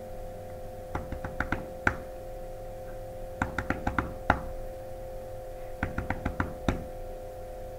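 Body percussion for a high drum part: hands patting the chest in three quick groups of five or six taps, with a pause of about a second and a half between groups where the hands are lifted off. A faint steady hum runs underneath.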